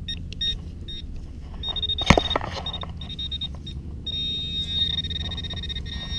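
Handheld metal-detecting pinpointer beeping in short high chirps, then sounding longer and, from about four seconds in, a steady rapid buzzing tone as its tip closes in on the buried target. One sharp knock about two seconds in.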